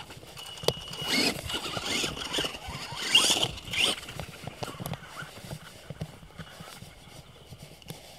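Traxxas Stampede radio-controlled monster truck driving over dirt and gravel: a high whine that rises and falls as it speeds up and slows, with its tyres scrabbling on the ground, loudest in the first four seconds. After that it is quieter, with scattered small clicks and crunches.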